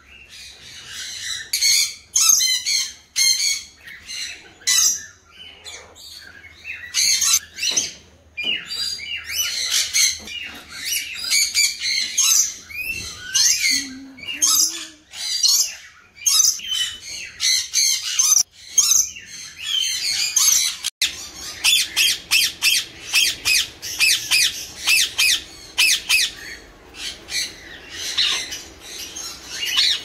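Sun conures screeching: loud, shrill squawks repeated over and over. About two-thirds of the way through the sound cuts to a denser, faster run of parrot calls.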